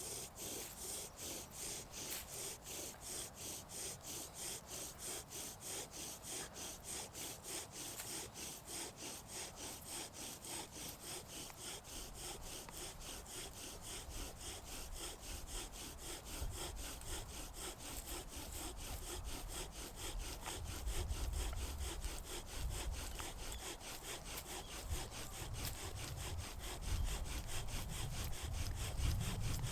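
Wood being worked in rapid back-and-forth strokes, about three a second, coming faster and less distinct about halfway through, with a low rumble building near the end.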